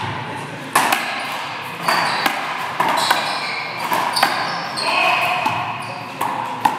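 A hard rubber handball smacking the wall and floor about five times during a rally, with sneakers squeaking sharply on the court floor in between; each hit rings briefly in the hall.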